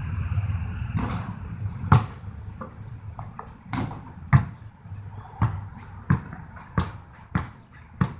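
A basketball being bounced on hard outdoor ground: single bounces at first, then steady dribbling at a little under two bounces a second. A low rumble, like a passing vehicle, fades out in the first two seconds.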